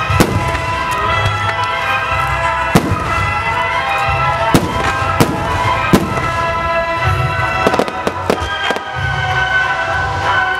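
Aerial firework shells bursting, a sharp bang every second or two, over music playing throughout.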